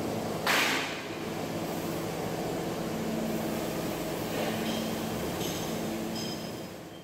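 Steady hum of workshop machinery with low droning tones, and a brief loud rattle of a thin galvanised steel sheet being handled about half a second in. A few faint high metallic rings follow later, and the sound fades out near the end.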